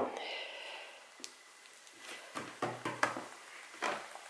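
Glue-and-borax slime squeezed and kneaded between hands: a few faint, soft, irregular squishes and taps, mostly in the second half.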